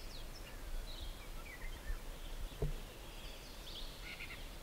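Small birds chirping faintly with short rising and falling calls over quiet open-air ambience, with one soft knock about two and a half seconds in.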